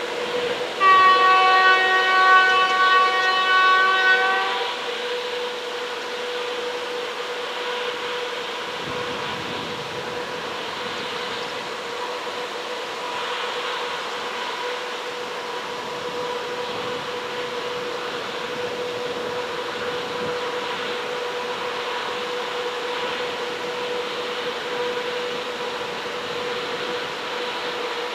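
Electric locomotive horn (EP09) sounding one long single-pitched blast of about three and a half seconds, starting about a second in, followed by a steady hum with a constant tone in it.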